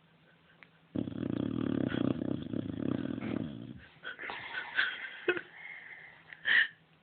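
Sleeping boxer dog snoring: one long, loud, rattling snore lasting about three seconds, followed by a quieter wheezy, whistling breath that ends in a brief high squeak.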